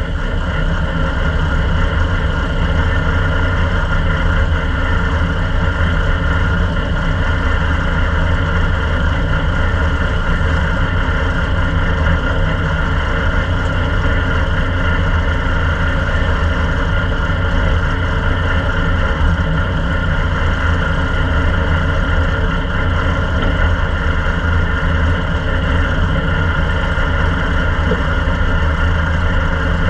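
Ministock speedway race car engine idling steadily.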